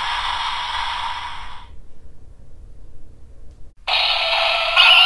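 Toy transformation belt (DX Hiden Zero-One Driver) playing an electronic sound effect through its small speaker, a noisy effect that fades out under two seconds in. After a short lull, music with synthesized vocals starts abruptly near four seconds in.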